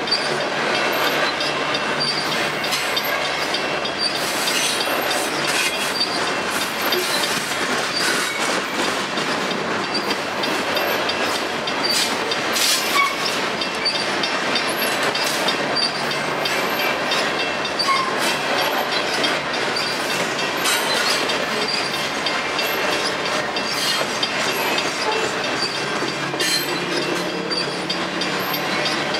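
Covered hopper cars of a potash freight train rolling past at track level: steel wheels on the rails keep up a steady rumble and rattle, with irregular clacks over rail joints.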